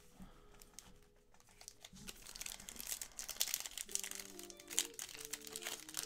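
Crinkling and tearing of a trading card pack's wrapper as it is ripped open by hand, growing busier from about two seconds in. Background music with held notes comes in about four seconds in.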